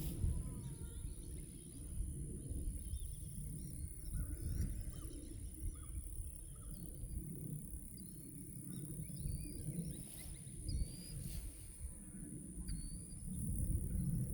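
Field ambience: an uneven low rumble of wind and movement on the microphone, with faint, short chirps of small birds scattered through it and a thin steady high hiss.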